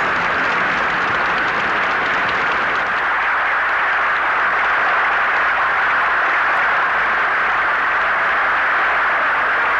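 A large audience applauding steadily, a dense, even clapping that neither swells nor dies away.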